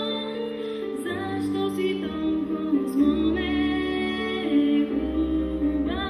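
A woman singing a slow folk song in long, wavering held notes over instrumental accompaniment.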